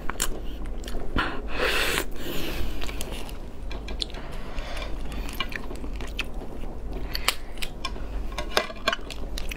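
Chewing of steamed lobster meat, with scattered sharp clicks and cracks as the cooked lobster's shell and legs are pulled apart by hand.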